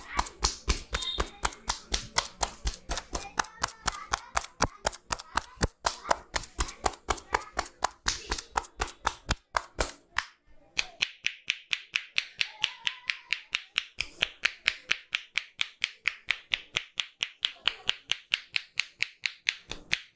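Rapid percussive massage: a barber's hands slapping and chopping on a client's body in a steady beat of about four to five strikes a second. After a brief break about ten seconds in, the strikes turn sharper and higher-pitched.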